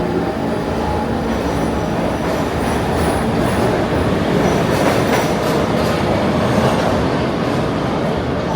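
New York City subway train running, a loud steady rumble of wheels on track, with faint high wheel squeal near the middle.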